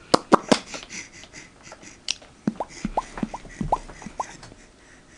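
A few sharp mouth clicks or pops, then about a second and a half in a run of short squeaky chirps, each dropping quickly in pitch, fading out near the end.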